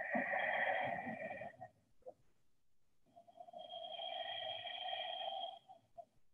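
Two long, deep breaths close to a body-worn microphone: a first breath of nearly two seconds, then after a short pause a longer one of almost three seconds.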